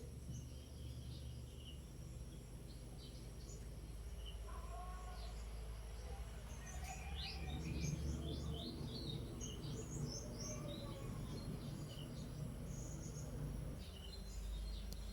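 Birds chirping, with many short calls that cluster a little before the middle, over a steady low hum and a thin, constant high-pitched whine.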